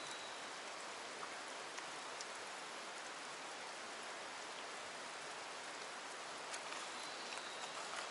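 Steady, even outdoor hiss with a few faint ticks scattered through it.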